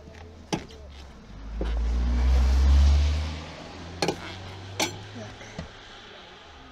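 A passing car swells and fades about one and a half to three and a half seconds in, the loudest sound here. A few sharp metallic clicks and knocks come from a car's scissor jack and its crank handle as it is worked.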